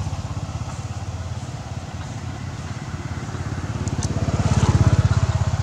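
A small engine running with a steady, even pulse, growing louder about four seconds in.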